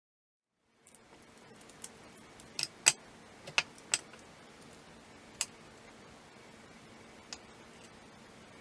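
Small metal carburetor parts clicking and tapping as they are handled and fitted together: a scattering of light, sharp clicks, the loudest about three seconds in, over a faint steady hum.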